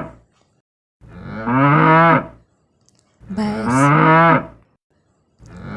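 Water buffalo lowing, the same deep moo played over and over. One call ends just after the start, two full calls of about a second and a half follow, and another begins near the end.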